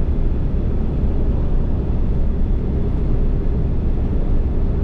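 Steady, loud low rumble of wind noise with no distinct tones or separate events.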